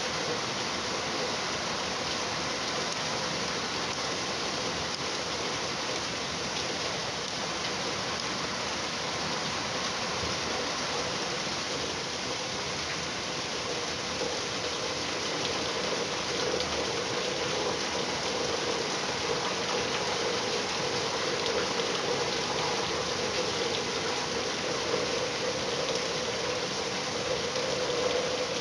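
Steady rain falling, an even dense hiss that grows a little louder in the second half.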